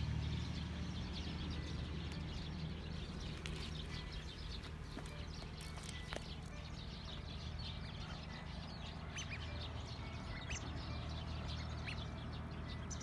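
Small birds chirping in short, scattered calls over a steady low hum, with a cat chewing squid.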